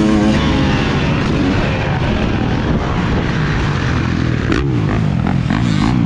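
Motocross bike engine running hard under throttle while ridden over a dirt track, its note rising and falling with the throttle, mixed with wind noise on the onboard camera.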